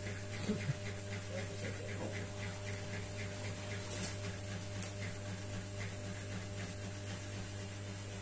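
Steady low electrical hum with faint room noise, and two small sharp clicks around the middle.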